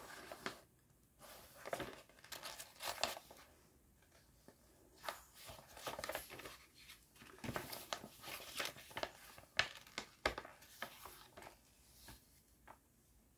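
Faint, irregular rustling and crinkling of paper sheets being handled and leafed through.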